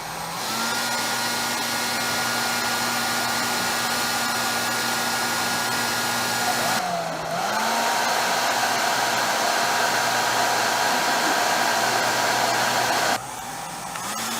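Hair dryer running with a steady blowing rush and a motor whine. About seven seconds in, the whine dips briefly and settles at a new pitch. Near the end the sound drops suddenly in level.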